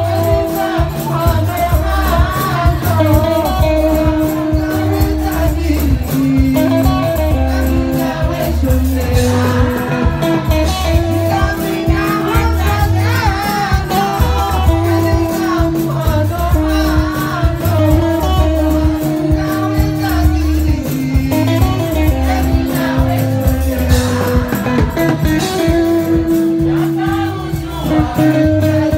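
Live band music: singing into a microphone over electric guitar and a steady bass beat.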